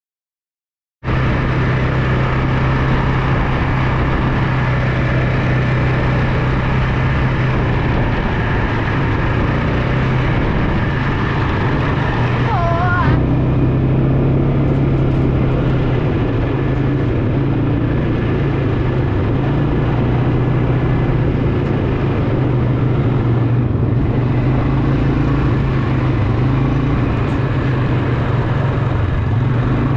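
Quad bike (ATV) engine running steadily under way, with wind rushing over the microphone; the sound starts about a second in.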